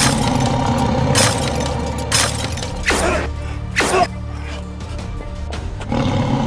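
Background action music with steady held tones, cut by four sudden hits about a second apart, the last two falling sharply in pitch like whooshes, with a crash-like edge.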